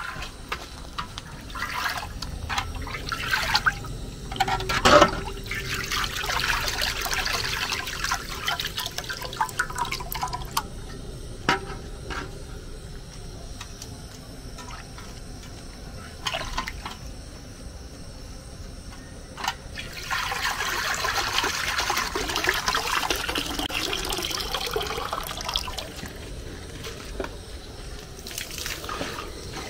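Water splashing and sloshing as jute leaves (ewedu) are washed by hand in a strainer dipped in a basin of water, in two longer spells of splashing with quieter trickling between. Occasional sharp knocks of the strainer against the metal basin.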